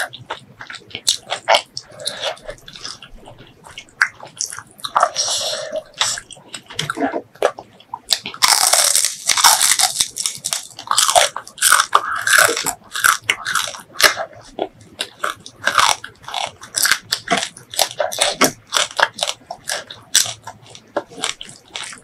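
Close-miked eating: crunching and chewing of crispy fried fish, rice and shredded mango salad, with many sharp wet mouth clicks. A longer run of loud crunching comes about nine seconds in.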